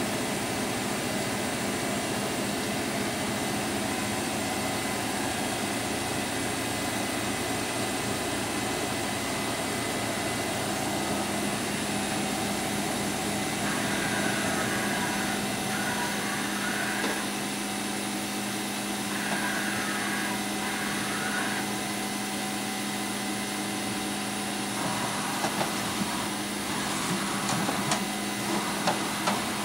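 Powered-up Kitamura Mycenter 1 vertical machining center running with a steady mechanical hum and a constant low tone. Twice around the middle a higher whirring joins for a few seconds, and a few light clicks come near the end.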